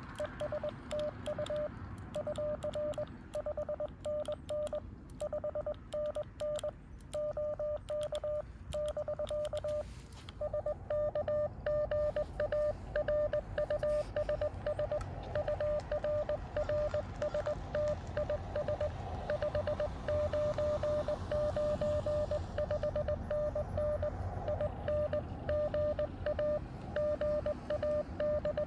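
Morse code from a Xiegu X6100 transceiver: one steady tone keyed on and off in dots and dashes. For the first ten seconds sharp clicks come with the tones, typical of the operator sending on a paddle key. After about ten seconds the keyed tones get louder over a steady hiss of band noise.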